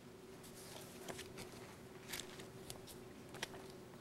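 Faint rustling and light ticks of photograph prints being handled and leafed through, over a steady faint hum.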